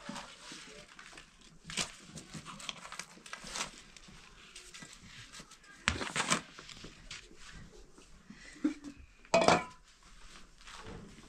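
Handling sounds: thin dry flatbread rustling and crinkling on a large metal tray, with a few sharp knocks and clinks, the loudest near the end.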